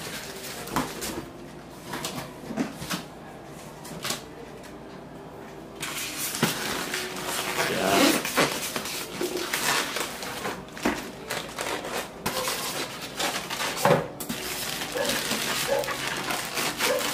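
Styrofoam packing blocks and a clear plastic bag rubbing and crinkling as a sewing machine is worked out of its packing. A few light handling clicks come first, then louder, denser crinkling from about six seconds in.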